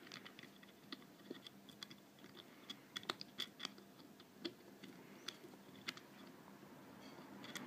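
Faint, irregular small metal clicks and taps as the steel caseback of a Tag Heuer F1 watch is fitted back on and turned by hand onto the case.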